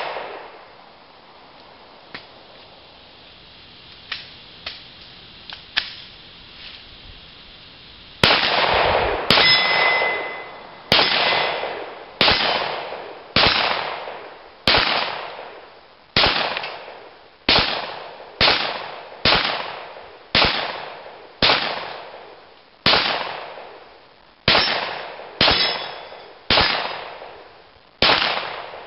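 A Glock 17 9mm pistol fires a string of about twenty shots at roughly one a second, with steel targets clanging as they are hit. Before the string there are several seconds of quieter outdoor background with a few small clicks.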